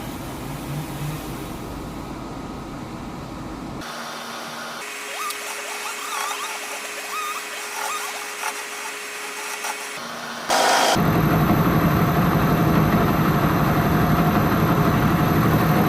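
Powermatic 90 wood lathe running while a swamp oak knob is turned, heard in several short clips joined with abrupt cuts. The noise becomes much louder and more even about ten and a half seconds in.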